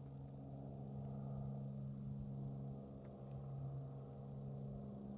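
Distant Grumman Widgeon seaplane flying by, its piston engines and propellers a faint, steady low drone with a few even tones.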